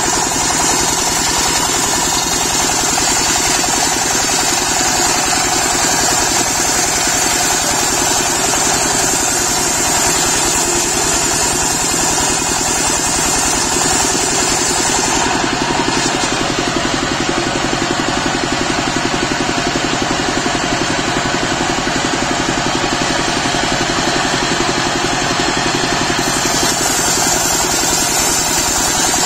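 Stationary engine of a portable circular sawmill running steadily, driving the saw blade as it rips a teak log into planks. A high hiss in the sound drops away for about ten seconds in the middle, then returns.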